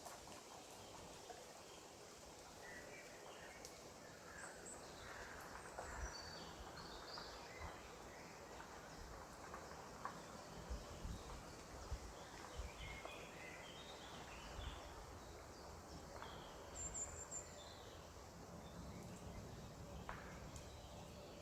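Small birds chirping and calling on and off over a faint, steady outdoor background, with a few soft low thumps around the middle.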